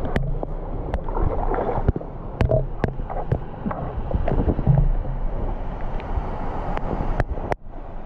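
Water sloshing and splashing close to the microphone, with many small irregular clicks and knocks, as a person moves about in a shallow waterfall pool. The sound drops out for a moment near the end.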